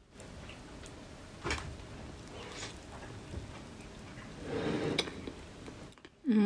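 Eating sounds: a bite into a taiyaki, a fish-shaped waffle filled with red bean paste, and chewing, swelling about four and a half seconds in, with a few soft clicks.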